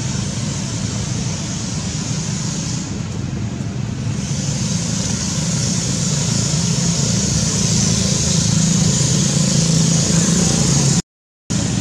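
Steady outdoor background noise: a low rumble under a high hiss. It cuts out completely for about half a second near the end.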